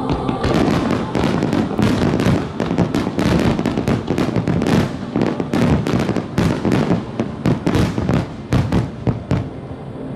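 A dense barrage of aerial fireworks: rapid bangs and crackling, many per second, thinning out near the end.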